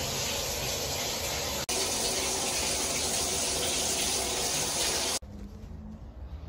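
Steady hiss of running water that cuts off suddenly about five seconds in, leaving a much quieter low hum.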